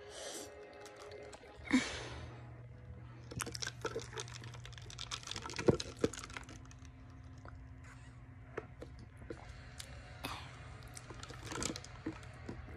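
Sipping soda through a straw from a lidded plastic cup held close to the microphone: short sucking noises near the start and just before two seconds in, then many scattered clicks and crackles of the plastic cup, lid and straw being handled. A steady low hum runs underneath.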